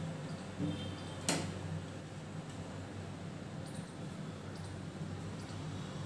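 Quiet room tone with a low steady hum, a faint brief high squeak just before one second in, and one sharp click just after.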